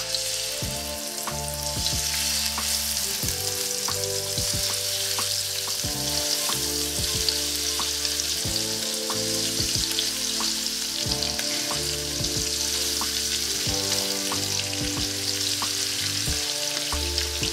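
Bone-in, skin-on chicken thighs frying skin side down in olive oil in a wide nonstick pan: a steady sizzle as the pieces are laid into the hot oil.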